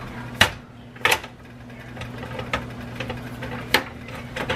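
Can opener cutting open a steel can of cream of mushroom soup: a few sharp clicks over a low steady hum.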